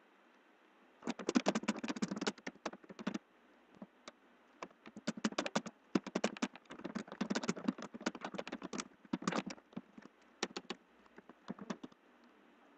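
Typing on a computer keyboard: quick runs of keystrokes in bursts with short pauses, starting about a second in and stopping near the end.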